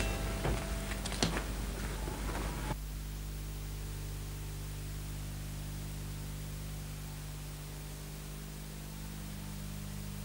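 Soft plucked-string background music dying away in the first few seconds, then only a steady low electrical hum and hiss from the old recording.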